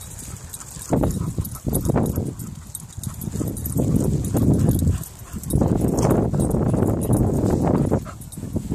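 Two dogs playing and chasing each other on grass, with repeated bursts of rough low noise from their running and play, the longest burst in the second half.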